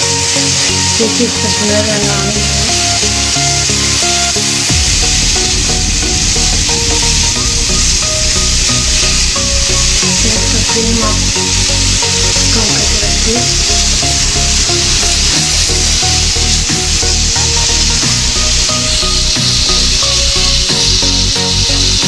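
Marinated chicken tikka pieces sizzling in an oiled grill pan while a wooden spatula scrapes and turns them, under background music whose steady beat comes in about five seconds in.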